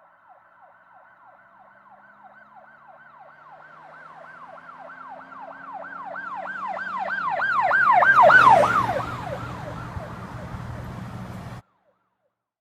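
Emergency vehicle siren in a rapid yelp, about three falling sweeps a second. It grows louder as the vehicle approaches and is loudest about eight seconds in, then drops in pitch as it passes, with vehicle noise beneath. It cuts off suddenly near the end.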